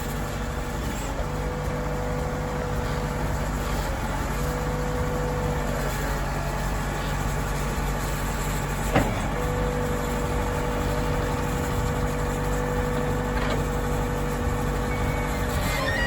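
Case 580 Super N backhoe's diesel engine running steadily while the rear hoe arm is worked, with a steady whine that drops out for a few seconds near the middle. A single sharp knock about nine seconds in.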